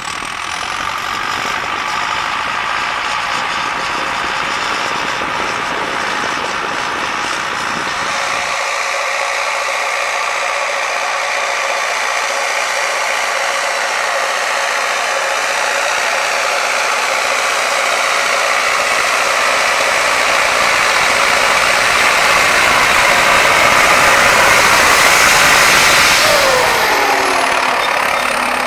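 MTZ 952.4 tractor's four-cylinder diesel engine working steadily under load as it pulls a plough. It grows louder toward the end, and its pitch drops as it passes close by.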